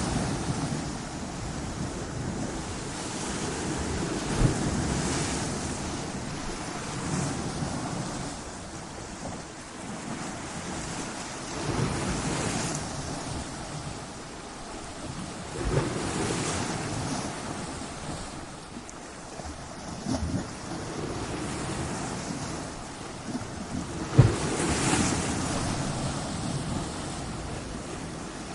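Ocean waves breaking on a shore, the surf rising in a fresh surge every few seconds over a steady wash, with sharp low thumps as breakers hit, the strongest about twenty-four seconds in. Wind buffets the microphone.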